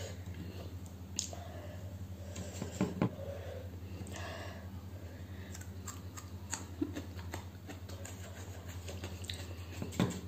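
Close-up eating sounds: chewing and mouth noises as food is picked from a plate by hand and eaten. A few sharp clicks stand out, the loudest near the end. A steady low hum runs underneath.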